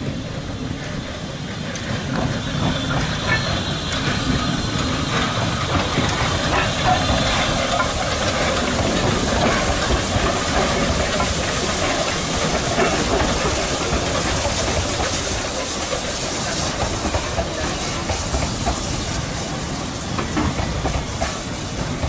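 Ex-South African Railways NGG 13 Class Beyer-Garratt narrow-gauge steam locomotive passing close by with steam hissing. Its coaches follow, wheels clicking on the rails. The sound grows louder over the first few seconds and stays steady.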